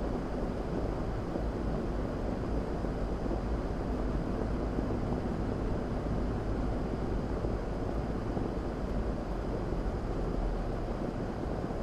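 A car being driven at about 30 mph, heard from inside the cabin: a steady rumble of tyres on a wet road with the engine running underneath.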